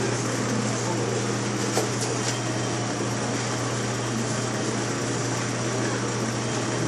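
Steady mechanical hum with an even hiss, unchanged throughout, with a couple of faint light clicks about two seconds in.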